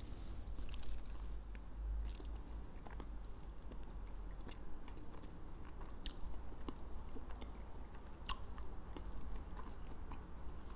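A man chewing a mouthful of caviar on toast, with small scattered clicks and crunches.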